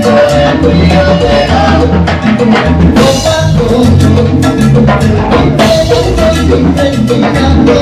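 Salsa band playing an instrumental passage: bass, piano and percussion keep a steady beat, with a cymbal crash about three seconds in.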